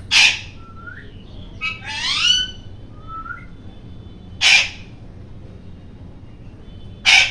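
Indian ringneck parakeet squawking loudly three times, with a run of shorter rising chirps and whistled calls between the squawks.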